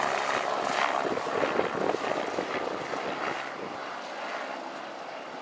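Helicopter passing overhead, its rotor beating loud at first and then fading steadily as it flies away.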